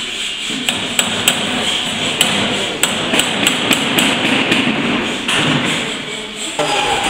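Hand hammers striking metal in a fitting workshop: irregular sharp blows, several a second at the busiest, over a steady background hiss.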